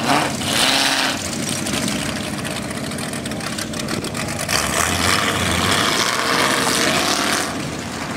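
Off-road 4x4 truck engines running, their revs rising and falling, with two louder swells of noise.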